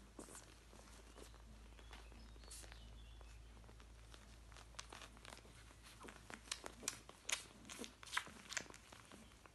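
Newborn Golden Retriever puppies suckling at their mother, with faint wet smacking clicks that come more often and louder in the second half.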